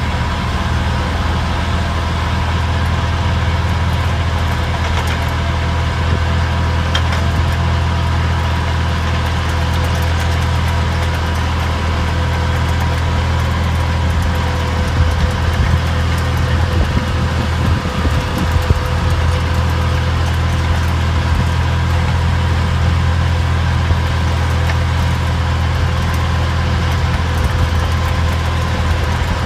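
Tractor engine running steadily under load, driving a Brevi power harrow through the PTO as its rotating tines till the soil. A steady low drone carries a thinner steady tone above it.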